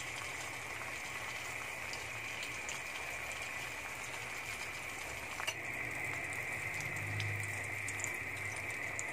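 Egg and dulong omelette mixture sizzling gently in a little oil in a pan on low heat, a steady fine crackle. One sharp click about five and a half seconds in.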